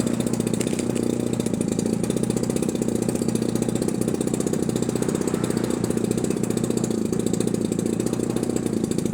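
A small engine running steadily at a constant speed, with a fast, even pulsing.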